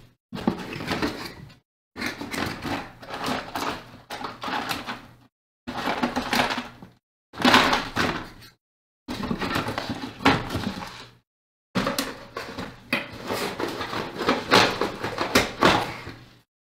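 Rummaging through drawers and boxes of small spare electronic parts: clattering and rattling in bursts one to two seconds long, with brief silences between.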